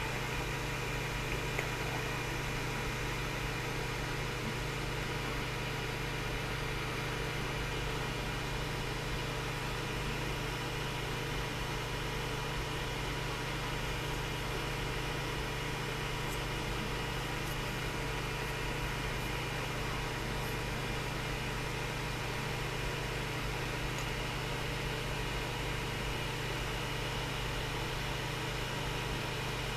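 Steady low machine hum with an even hiss, like a fan or electrical hum.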